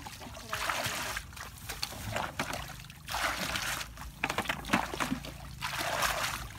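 Muddy water splashing out of a plastic bucket in repeated pours, about four splashes each under a second long, with a few small knocks between them: water being bailed out of a ditch.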